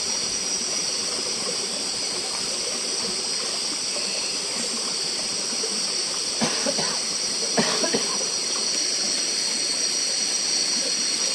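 Steady high-pitched chorus of night insects in tropical forest, with a couple of brief knocks a little past the middle.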